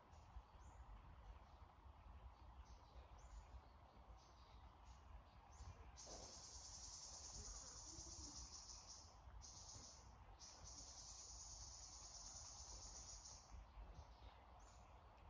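Near silence with faint insect trilling: short high chirps at first, then a steady high buzz from about six seconds in that breaks off twice briefly and stops near the end.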